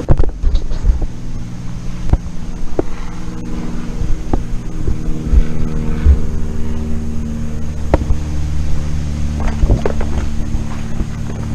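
A steady motor hum with scattered knocks and clatter.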